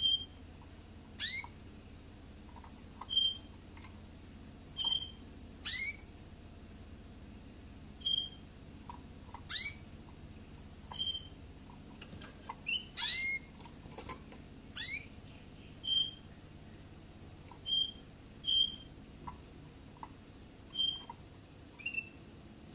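Small caged finch giving short, sharp calls every second or two: clipped single notes alternating with quick chirps that slide steeply downward, with a faint steady hum underneath.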